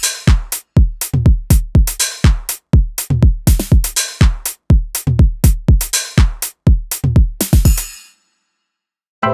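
An 80s-style drum machine pattern: low kick and tom hits that drop in pitch, each one punchy, mixed with bright snare and cymbal hits in a fast, steady rhythm. It stops about eight seconds in and falls silent for about a second.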